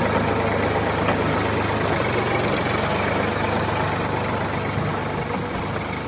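Tractor engine running steadily with a low, even drone, getting gradually quieter.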